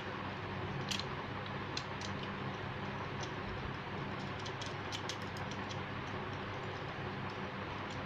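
Scattered light clicks and taps from fingers handling a plastic switchboard with brass terminal screws, over a steady low hum.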